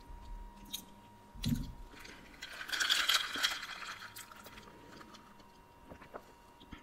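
Drink sucked up through a plastic straw, a slurping hiss lasting about a second and a half near the middle, with small mouth clicks and chewing sounds around it and a low thump about a second and a half in.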